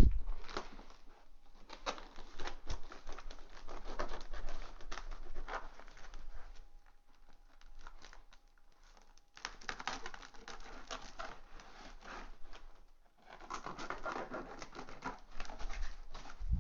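A kitchen knife cutting into a cardboard shipping box, with irregular scraping, ripping and crinkling of tape and cardboard, and a few quieter seconds near the middle.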